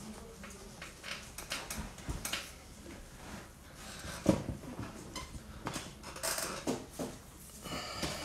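Scattered light clicks and knocks of things being handled off to the side, with one sharper knock about four seconds in, over quiet room tone.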